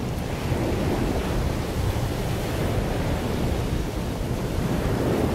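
Wind blowing across the microphone over the wash of open bay water, a steady, deep rushing noise with no distinct engine tone.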